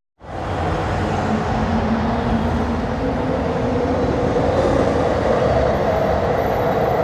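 Train sound effect: a train running on the rails, a steady noise that starts abruptly just after the start.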